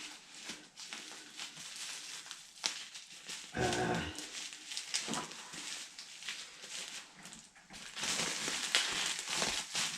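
Handling noise: rustling and clicking, denser and louder near the end, with one short whine-like pitched sound about four seconds in.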